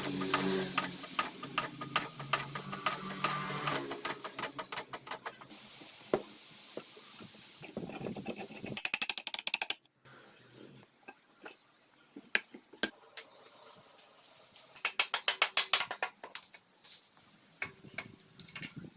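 Workshop tool sounds: a small motorized tool runs with a hum and rapid clatter for about four seconds, then stops. Quick runs of ratchet-like clicking and single metallic taps follow, twice in longer bursts.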